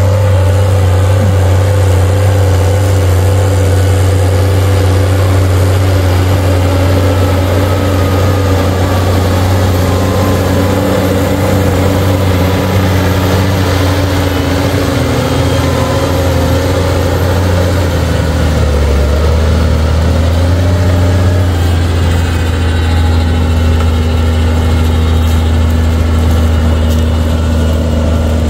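Case IH Puma 180 CVX tractor's six-cylinder diesel engine running steadily; its note dips briefly about two-thirds of the way through, then settles again.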